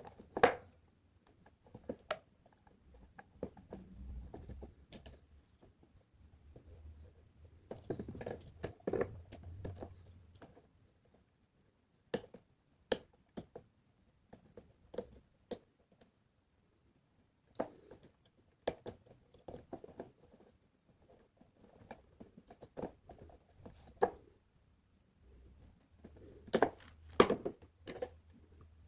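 Irregular clicks, taps and light knocks of small electronic parts and a project enclosure being handled while an LCD display is mounted into it. The handling comes in busier clusters, with the loudest clicks near the start and near the end.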